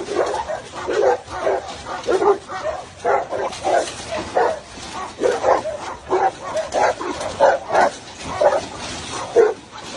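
Large guard dogs barking repeatedly at a person behind a gate, about two barks a second, in an irregular volley that does not let up.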